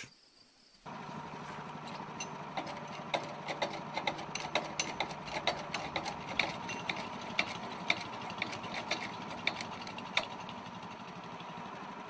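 A sawmill's engine running steadily at idle, starting about a second in, with irregular metallic clicks and clanks as a log is handled on the mill's steel bed.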